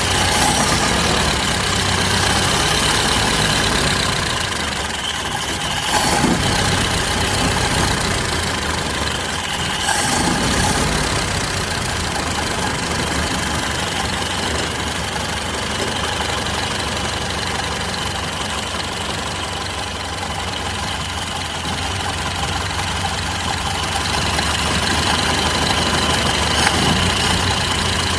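Old car engine idling steadily, with short louder surges about six and ten seconds in.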